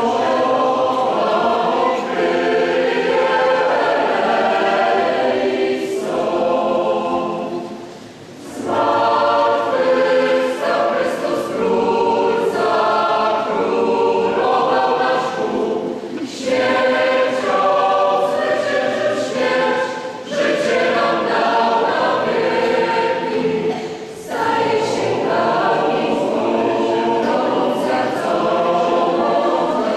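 Mixed choir of women's and men's voices singing in parts, phrase after phrase, with a short break about eight seconds in.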